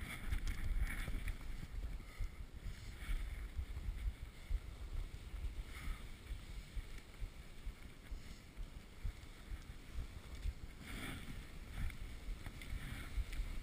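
Skis sliding over snow behind two Alaskan huskies while skijoring, in irregular swishes. Under them runs a steady low rumble of wind on the chest-mounted camera's microphone.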